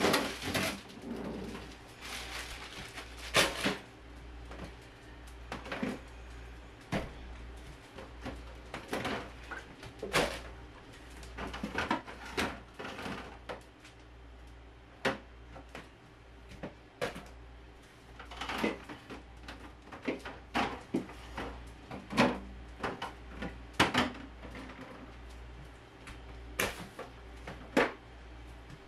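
Bottles, jars and plastic containers being taken out of and moved around a refrigerator's door shelves and bins: irregular clinks, knocks and rattles every second or two, over a steady low hum.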